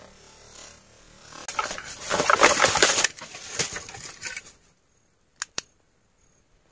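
Dry bamboo leaf litter and sheaths crackling and rustling as they are disturbed, loudest two to three seconds in, followed by two sharp clicks about five and a half seconds in.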